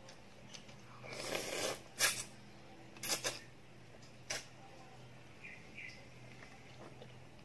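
Noodles being slurped from a bowl of chicken noodle soup: one longer slurp about a second in, then short sharp slurps around two, three and four seconds in.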